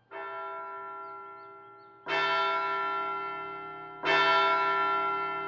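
A large bell tolling three times, about two seconds apart, each stroke ringing long and fading away; the first stroke is softer than the other two. It sounds like a clock bell striking the hour, signalling that time is up.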